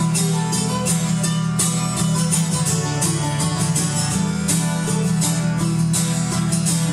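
Acoustic guitar and mandolin playing a folk tune together, strummed in a steady quick rhythm, with no singing in this passage.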